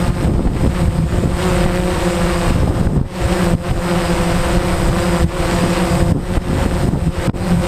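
DJI Phantom quadcopter's motors and propellers whirring in flight, a steady hum that wavers slightly, under heavy wind buffeting on the microphone.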